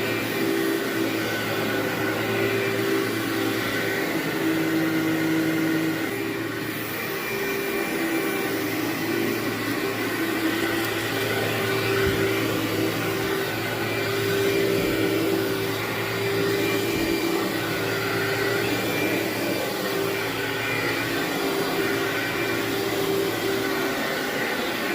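Vacuum cleaner running steadily over carpet, its motor giving an even hum.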